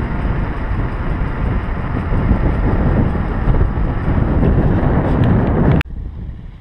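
Wind rushing and buffeting over a handlebar camera's microphone as a mountain bike rolls along an asphalt road, a dense low rumble that cuts off abruptly near the end.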